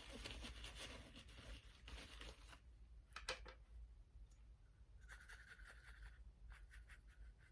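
Near silence: room tone with faint scratchy rustling in the first couple of seconds and a couple of soft clicks about three seconds in.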